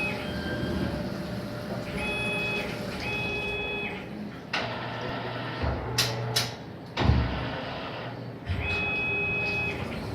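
CNC lathe running its machining cycle: a steady mechanical drone with high motor whines that start and stop in short stretches, a couple of sharp clicks about six seconds in and a heavy thump about a second later.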